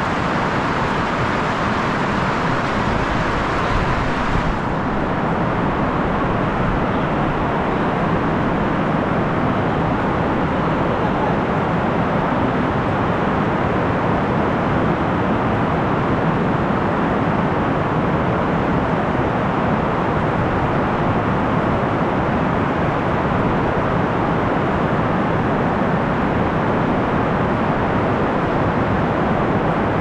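Heavy rain falling steadily, a dense even hiss. About four seconds in, its brightest, highest part drops away and the hiss turns duller.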